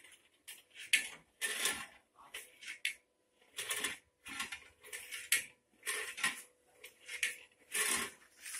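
The Scotch yoke mechanism of a hand-cranked hacksaw machine clattering metal on metal as the crank is turned, in short rattling bursts about one to two a second with each stroke of the sliding arm.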